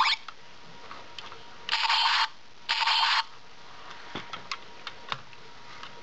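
Electronic sound effect from the Astro Megazord toy's built-in speaker: two short noisy blasts about a second apart. A few light plastic clicks follow as the toy is handled.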